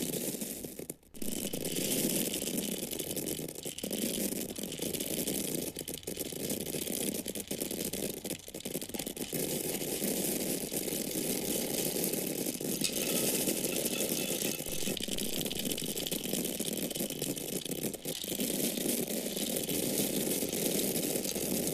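Dry corn kernels falling and pouring onto each other as a dense, continuous stream of tiny clicks, broken by a brief pause about a second in.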